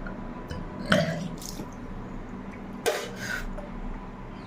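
A woman with a heavy cold retching and coughing: two harsh bursts from the throat, one about a second in and another about three seconds in.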